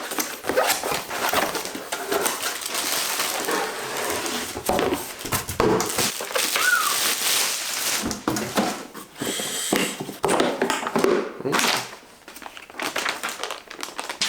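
Packaging being opened and handled: plastic and cardboard rustling and crinkling in irregular bursts, with light knocks as the case is unwrapped.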